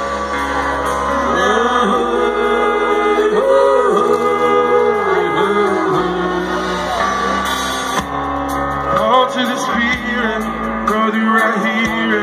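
Live band playing through a stretch between sung verses. A melody slides up and down in pitch over sustained chords.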